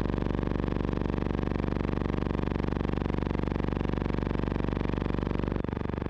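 A loud, steady buzzing drone with many overtones; its lowest part shifts near the end.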